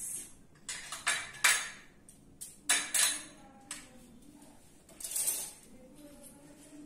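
Kitchen containers and utensils clinking and clattering as they are picked up and set down on a counter: a string of separate knocks over the first five seconds or so, then quieter.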